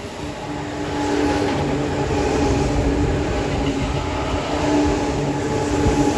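A Tobu 9000-series electric commuter train passing, growing louder about a second in, with steady whining tones over the rumble of the running gear.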